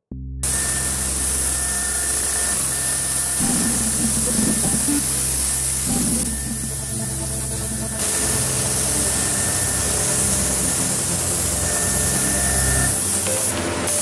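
Steady hiss of a compressed-air gravity-feed spray gun spraying, with background music playing over it.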